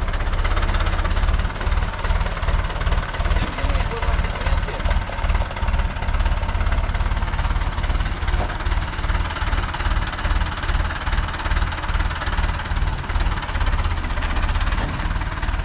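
A vehicle's engine running steadily, with a rapid low throb.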